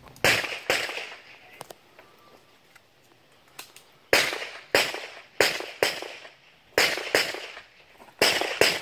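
Handgun shots, about ten, fired mostly in quick pairs about half a second apart, each with a short echo off the range.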